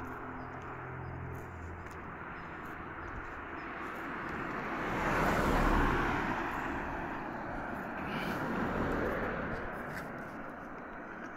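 Cars passing on a road: one swells and fades about halfway through, and a second, quieter one passes near the end. A low engine hum dies away in the first second or two.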